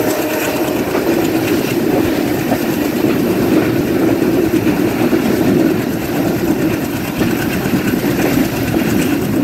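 Intercity passenger train running fast, heard from aboard: a steady, loud noise of wheels on the rails.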